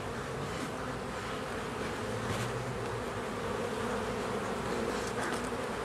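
Many honey bees buzzing at a hive: a steady, dense drone with lower tones that waver as individual bees fly close.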